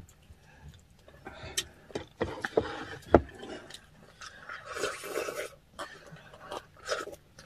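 Eating sounds: utensils clinking and scraping on a dish, with chewing, and one sharp clack about three seconds in.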